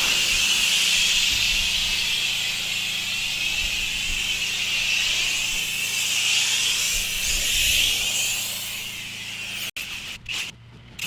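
Alkaline cleaning foam being sprayed onto block paving: a steady, loud hiss from the spray over the low hum of a running machine. It cuts off sharply near the end, then comes back patchier and quieter.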